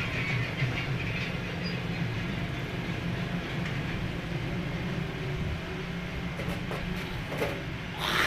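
A steady low mechanical rumble, like an engine running, with a short, louder sound near the end.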